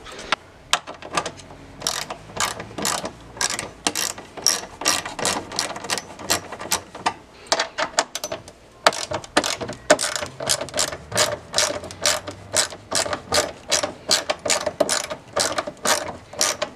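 Hand ratchet clicking steadily, a few clicks a second, as it backs out the fasteners holding the front bumper's upper radiator cover panel.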